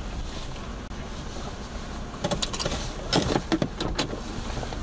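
A car's steady low engine and road rumble, heard from inside the cabin as it pulls up slowly. About two seconds in comes a run of sharp clicks and knocks, loudest a little after three seconds.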